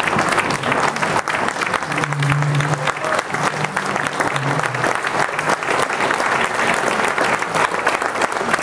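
Audience applauding steadily, with a dense patter of many hands clapping.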